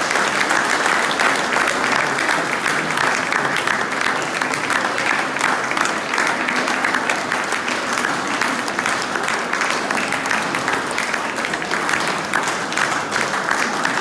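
Steady applause from a standing crowd in a gallery room, many people clapping at once.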